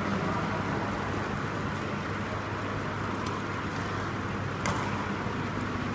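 Steady low hum and hiss of an indoor badminton hall, with a few sharp taps of badminton rackets striking a shuttlecock past the middle, the loudest about four and a half seconds in.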